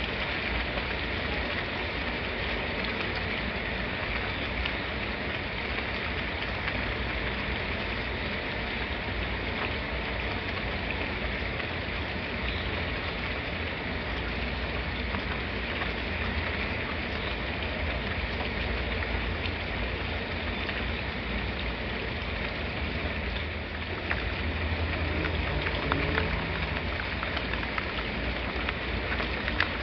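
Steady rain falling, an even hiss of drops with no break. A low rumble swells briefly about three-quarters of the way through.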